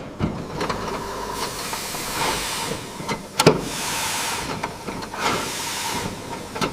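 Steam hissing in repeated surges that swell and fade, with a single sharp knock about three and a half seconds in.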